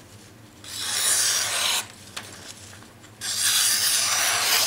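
A cKc hunter knife blade slicing through a sheet of paper in two long strokes, a papery hiss each time, about a second in and again near the end. It is a paper-cutting test of the edge, which cuts cleanly.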